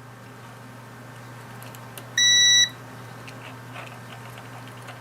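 A multimeter's continuity beeper sounding one short, steady beep of about half a second a couple of seconds in: the probes have found continuity across the key fob circuit.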